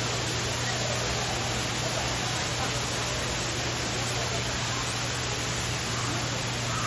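Steady rushing of a waterfall: an even hiss with a steady low hum beneath it and faint distant voices.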